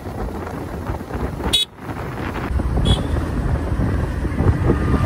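Motorcycle riding along, its engine running under wind noise on the microphone, the engine growing louder after about two and a half seconds. A short horn beep comes about one and a half seconds in.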